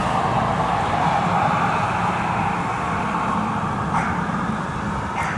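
Steady road-traffic noise, the hum of passing vehicles' tyres and engines, easing off slightly toward the end.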